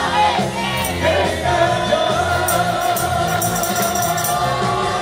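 A man singing a Spanish ballad into a handheld microphone over backing music, drawing out long held notes, with light percussion ticking along.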